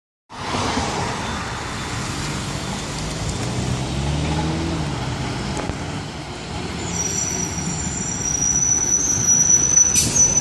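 Orion VII Next Generation CNG transit bus approaching and pulling in to a stop, its engine and tyre noise growing louder. A high steady squeal, typical of brakes as the bus slows, starts about seven seconds in. A brief sharp burst comes near the end as it stops.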